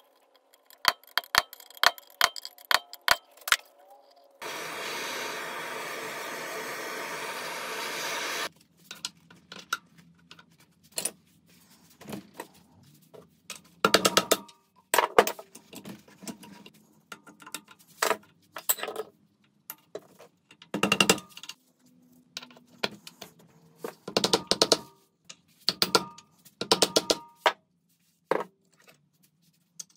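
Metal engine parts and hand tools clinking and knocking in a series of separate sharp strikes. About four seconds in comes a steady hiss lasting about four seconds.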